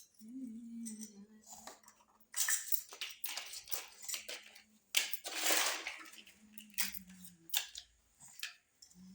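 Small plastic toy kitchen pieces being handled and set down, with a string of light clicks and taps and bouts of crinkly packaging rustling, the loudest near the middle.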